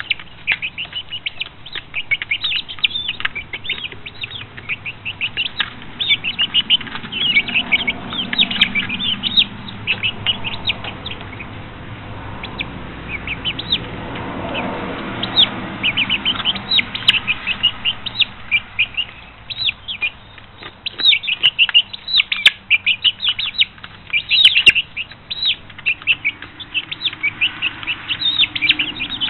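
A flock of five-week-old chicks peeping continually, many short high peeps overlapping one another, thinning out briefly around the middle.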